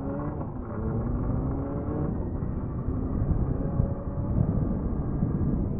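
Motorcycle engine accelerating, its pitch rising through the first couple of seconds, then a dense rumble of engine and rushing wind that builds as speed picks up.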